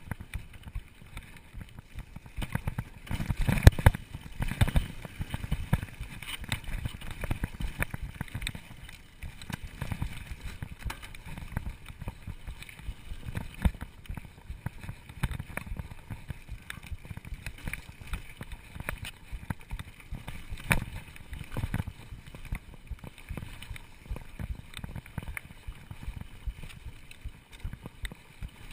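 Mountain bike riding over a rough dirt trail, heard from a camera carried on the ride: a steady rumble with irregular knocks and rattles as the bike jolts over bumps, the hardest jolts about three to four seconds in.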